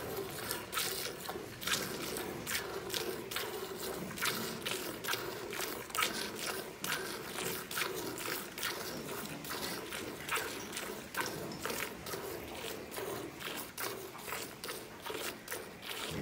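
Hand-milking a cow into a steel bucket: alternating jets of milk squirt into the milk already in the pail, a short hissing squirt two or three times a second in a steady rhythm.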